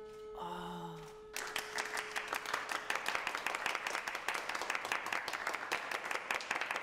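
Applause from a small group of people clapping, breaking out suddenly about a second and a half in. Before it, a single held musical note rings and slowly fades.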